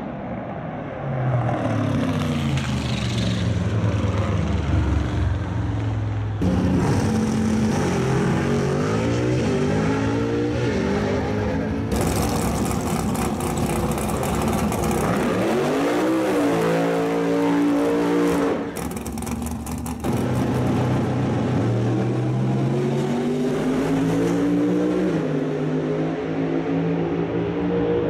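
Drag racing cars' engines revving hard and running down the strip, their pitch repeatedly climbing and dropping as they accelerate. The sound changes abruptly several times between passes.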